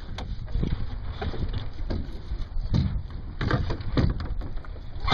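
Wind buffeting the microphone of a camera on a Sunfish sailboat under way, a steady low rumble broken by irregular short slaps of water against the hull.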